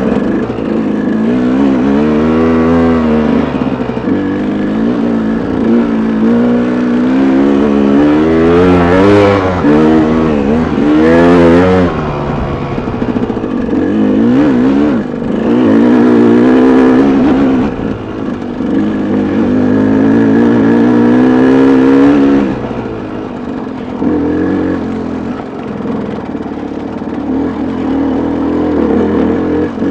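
KTM dirt bike's engine revving up and down again and again as the throttle is worked over a rocky climb, then running quieter and steadier for the last several seconds.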